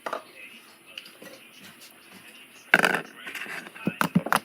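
Slime being squished and worked by hand: a sudden loud, noisy burst a little over halfway through, then a run of sharp, irregular sticky clicks and pops.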